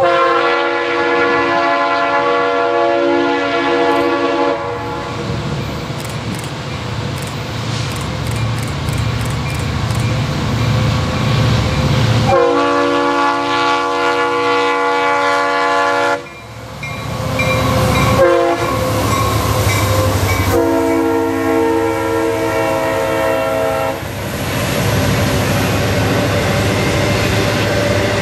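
Diesel freight locomotive horn sounding the grade-crossing signal: two long blasts, a short one and a long one, over the low rumble of the locomotives' diesel engines.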